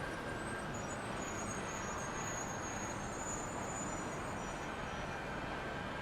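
Steady road traffic noise, an even hiss and rumble with a faint high whine above it.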